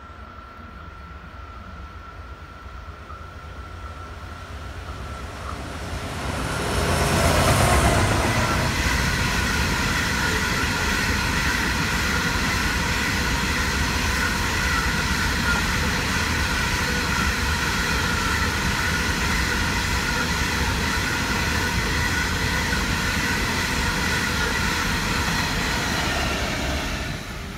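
Pacific National coal train hauled by TT-class diesel locomotives passing close by. It grows louder for about seven seconds to a peak as the locomotives go past. Then comes a steady run of coal hopper wagons rolling by, with a ringing tone from the wheels on the rails.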